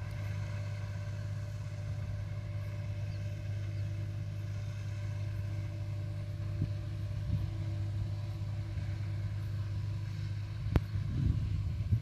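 An engine running steadily, giving a low, even drone. A single sharp click comes near the end, followed by a little low knocking.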